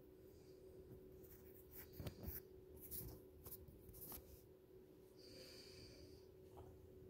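Near silence: room tone with a steady low hum, a few soft rustles and clicks about two to four seconds in, and a short breathy sound a little after five seconds.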